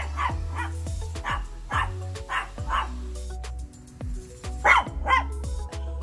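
A dog barking repeatedly in short pairs about half a second apart, over background music with steady sustained notes.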